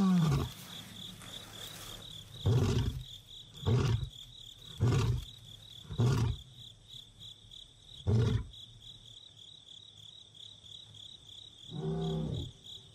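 Male lion roaring to call his separated brother. A long moaning call trails off at the start, followed by five short grunting roars about a second apart, spacing out toward the end. Two fainter roars come near the end, while crickets chirp steadily.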